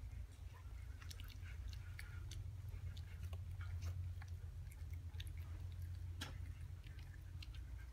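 Siberian Husky puppy eating food from a plastic bowl: many small irregular mouth clicks, over a steady low hum.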